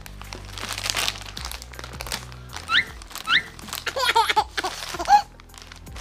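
Plastic candy bag crinkling as it is pulled open by hand, over steady background music. Two short rising squeaks come about halfway through, and a brief wavering pitched sound comes just before the end.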